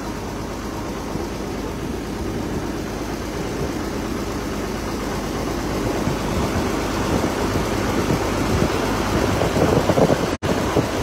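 Engine of a river ferry boat running steadily under way, growing gradually louder; the sound cuts out for an instant near the end.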